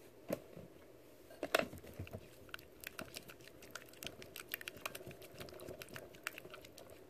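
A spatula stirring a thick, sticky mix of glue, hair conditioner and baby oil in a bowl: quick irregular sticky clicks and squelches, several a second, with two louder ones in the first two seconds.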